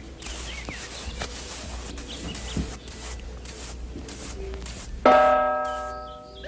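A single bell struck about five seconds in, ringing with many overtones and fading away, after a few seconds of faint chirps over a steady hiss.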